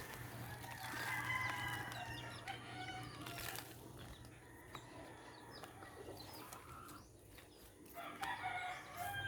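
Roosters crowing: one long crow about a second in and another near the end, over a steady low hum.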